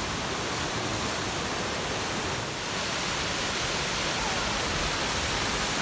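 Steady rush of a small mountain waterfall pouring down rocks, swollen into a torrent by heavy rain.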